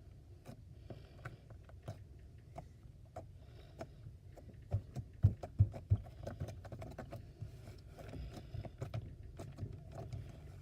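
Slime being squished and worked, giving a run of small sticky clicks and pops, with a few louder pops about halfway through.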